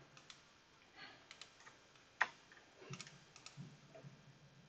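Faint, scattered clicks of a computer mouse and keyboard, with one sharper click about halfway through.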